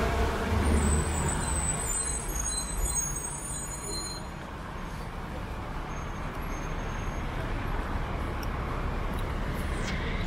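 Street traffic on a wet city avenue: cars passing with tyres hissing on the rain-soaked road, and a heavier vehicle's rumble in the first two seconds that then fades. A few faint high squeaks sound in the first few seconds.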